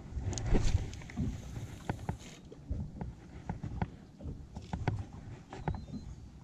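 Irregular knocks and clicks aboard a small fishing boat, over a low rumble of the boat and water, with a louder rush of noise in the first two seconds.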